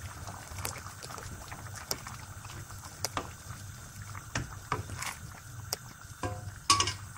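Wooden spoon stirring boiling tripe soup in a stainless steel pot: liquid sloshing and bubbling, with scattered light knocks of the spoon against the pot.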